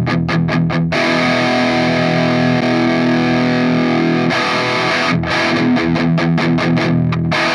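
Electric guitar played through a Hotone Ampero's British high-gain amp and cabinet model, with a boost in front of the amp. It plays a distorted riff: a run of quick short strokes, a chord left ringing for about three seconds, then fast repeated strokes again.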